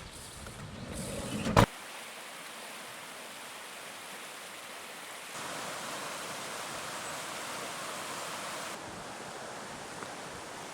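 Rising swell ending in a sharp hit about one and a half seconds in, then steady rushing water like a mountain stream. It steps louder for a few seconds in the middle and drops back abruptly.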